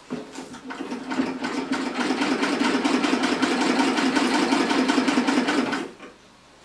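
Singer 27 treadle sewing machine running fast, a rapid even clatter of needle bar and mechanism. It builds up over the first couple of seconds, holds steady, then stops abruptly near the end.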